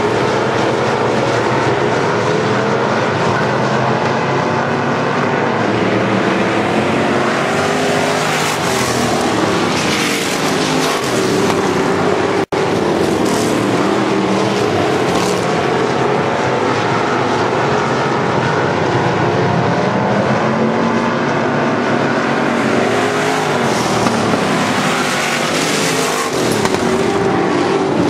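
Several hobby stock race car engines running hard at once on a dirt oval, their pitch rising and falling as the cars lap through the turns. The sound cuts out for an instant about twelve seconds in.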